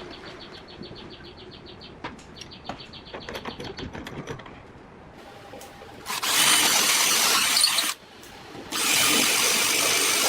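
Angle grinder sanding metal in two loud stretches of harsh hiss, about six seconds in and again after a brief stop near eight seconds. Before that, a quiet fast ticking.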